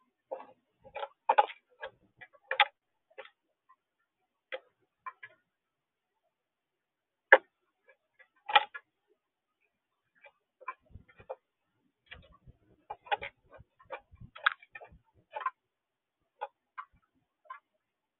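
Mourning dove pecking at seed on a feeder tray: irregular sharp clicks and taps of its bill striking the seed and tray, coming in clusters with short pauses between them.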